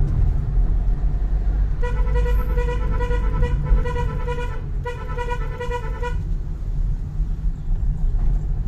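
Vehicle horn sounding two long, steady blasts, starting about two seconds in and stopping about six seconds in, over the steady low rumble of a car's engine and tyres heard from inside the cabin.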